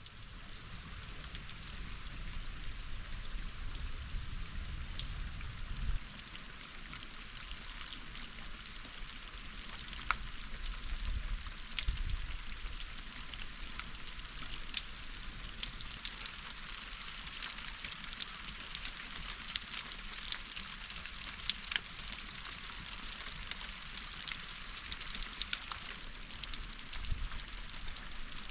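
Headwater stream water spilling down and splashing over a large boulder: a steady hiss with many small drips and splashes ticking through it. The flow is on the low side because of little rain, and the sound fades in over the first second or two.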